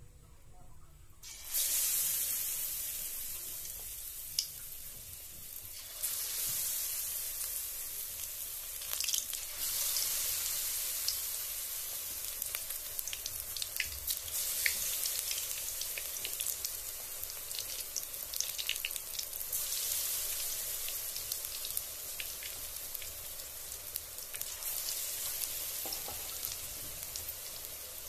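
Battered pieces deep-frying in hot oil in a wok: a steady sizzle full of small crackles. It starts suddenly about a second and a half in as the first pieces go into the oil, and grows louder again around six seconds as more are added.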